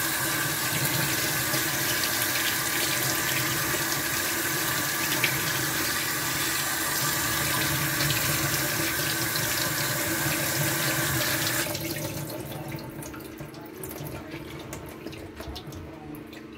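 Kitchen tap running, water splashing over sliced radish in a wire rack in a stainless steel sink, cut off suddenly about two-thirds of the way through. After that come faint drips and small wet sounds as the rinsed radish is handled and squeezed.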